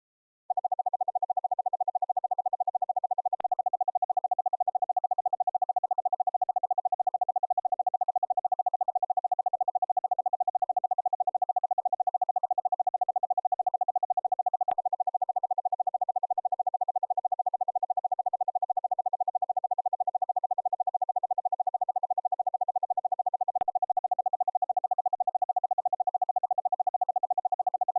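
Morse code sent as a keyed audio tone (AFCW sidetone): a steady mid-pitched tone switched on and off very rapidly by a CW keyer. It starts about half a second in. Three faint clicks come along the way, and at each the tone's edge sound changes slightly.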